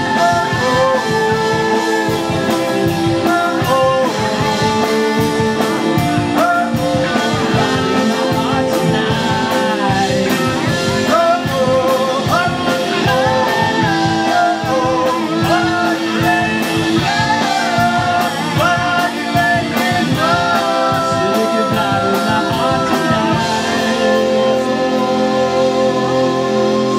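Live rock band playing electric guitars, bass and drums, with a melody line over the top. About three-quarters of the way through, the drumming stops and a held chord rings on.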